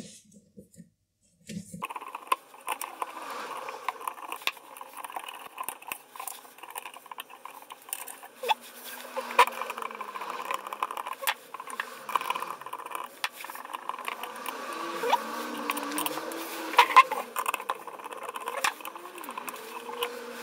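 Fast-forwarded sound of a screwdriver unscrewing bolts on a small machine and parts being handled: a rapid clatter of clicks and light metal taps, with short squeaky gliding tones now and then. It starts about two seconds in.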